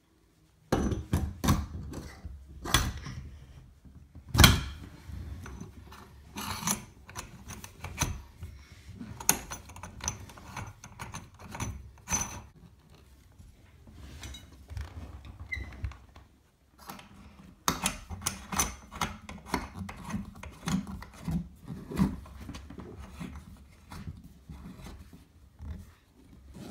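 Irregular metal clicks, knocks and rubbing as a brass central heating filter and its compression fittings are handled and fitted onto copper pipe, with a brief pause a little past the middle.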